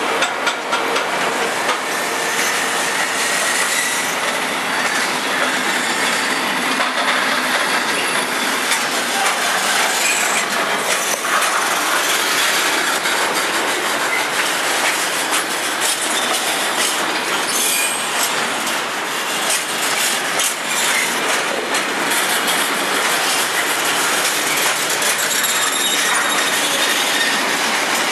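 Intermodal freight train of container flat wagons rolling past at low speed as it departs, the wheels clattering steadily on the rails. Faint high wheel squeals come through now and then.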